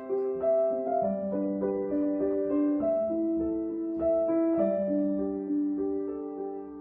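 Background music: a slow keyboard melody of held notes, changing about every half second.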